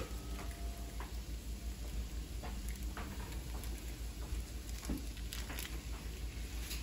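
Diced potatoes frying in a skillet with a soft, even crackle, while chorizo is squeezed from its casing into the pan and a wooden spoon knocks against it a few times. A low steady hum lies underneath.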